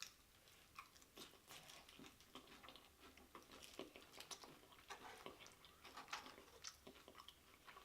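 Faint chewing and crunching of loaded nachos in the mouth, with many irregular short crackles from the tortilla chips.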